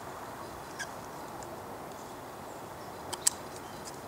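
Steady outdoor hiss with a few light clicks of metal parts, a sharper click about three seconds in, as the oiled D.A.R.T. bolt is slid into the back of a Planet Eclipse Ego11 paintball marker.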